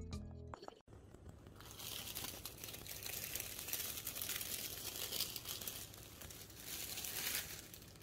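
Plastic wrap crinkling as it is peeled off a pan of proofed bread-roll dough. It is loudest in a long stretch from about two to five seconds in and again briefly near seven seconds. A snatch of background music cuts off abruptly in the first second.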